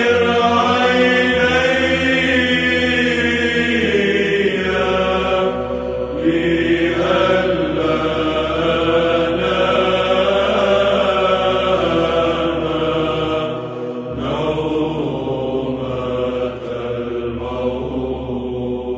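Orthodox church chant as background music: slow, drawn-out sung phrases over a steady low held note, with brief pauses between phrases.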